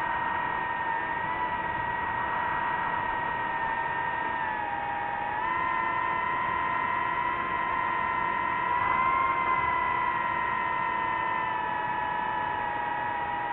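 DJI FPV drone's motors and propellers whining in flight, the pitch stepping up and down now and then as the throttle changes.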